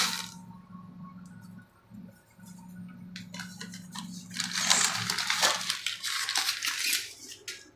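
Dry vermicelli (sevai) dropped into a kadhai of simmering milk: scattered light clicks and crackles, then a denser, louder spell of rustling and clicking from about three and a half seconds in, over a steady low hum.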